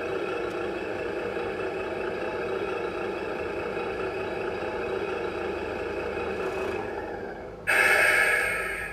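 An RC truck's GT Power sound unit playing a simulated diesel truck engine idling steadily. The engine sound dies away near the end and is followed by a sudden loud hiss lasting about a second.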